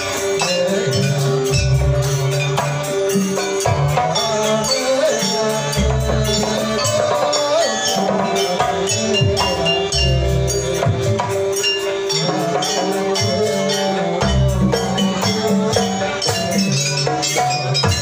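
Live Javanese jaranan ensemble music played on drums, keyboard and percussion. Fast, steady clashing percussion strokes run under a sustained melody, with deep bass notes every few seconds.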